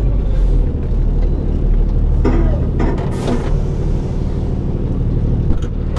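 Ford Cargo 2628 dump truck's diesel engine idling steadily, with a short hiss of compressed air about three seconds in and faint voices in the background.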